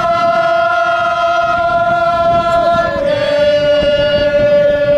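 Football supporters' chant from the stands, sung in long held notes: one note for about three seconds, then a slightly lower one, over a low crowd murmur.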